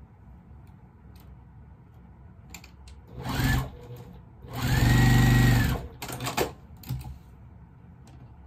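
Electric sewing machine stitching in two runs: a short one about three seconds in, then a longer one of about a second and a half, the motor speeding up and slowing down at each end. A few light clicks follow.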